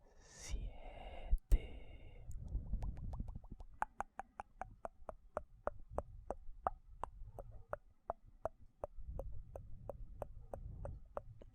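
ASMR mouth sounds close to the microphone: a short wet mouth noise at the start, then a steady run of sharp mouth clicks, about three a second.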